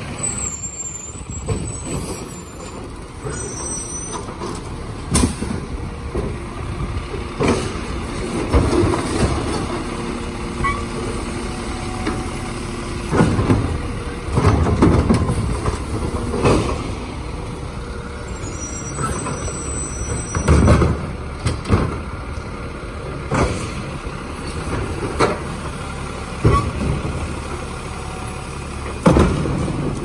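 Automated side-loading garbage truck working at the curb: its diesel engine running and air brakes hissing, with a series of sharp bangs and clatters as the hydraulic arm grabs, lifts and empties the wheeled carts.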